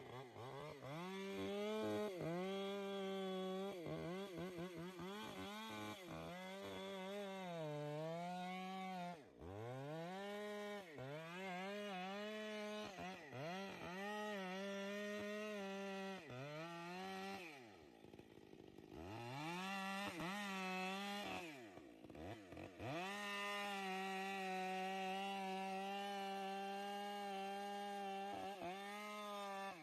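Chainsaw running at high revs while cutting, its engine note sagging and recovering as the chain bites into the wood. It drops off briefly about a third of the way in, and twice more past the middle, before picking back up.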